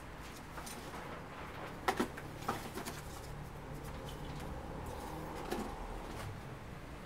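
Hand tools being handled and set into a plastic bucket: a few knocks and clatters, the loudest pair about two seconds in, over a low steady hum.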